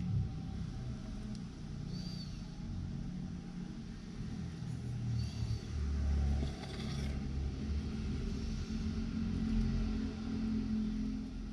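Low, uneven rumbling background noise, with a few faint short high chirps.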